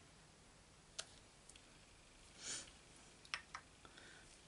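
A few faint clicks and taps from a clear acrylic stamp block being lifted off the card and handled on the desk: one about a second in, two close together a little past three seconds, with a brief soft noise between them. Otherwise near silence.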